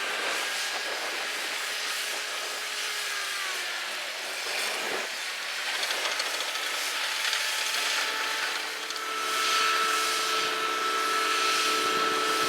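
Bulldozer running: a steady mechanical whine over a broad engine noise, with a short dip about five seconds in.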